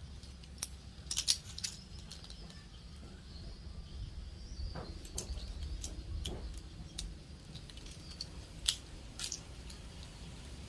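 Light, irregular clicks and taps of jigsaw puzzle pieces being picked up and fitted together, over a low steady hum.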